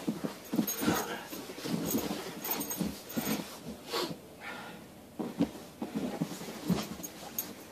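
Central Asian Shepherd Dog making short, irregular grunts and heavy breaths in rough play, mouthing a man's gloved hand.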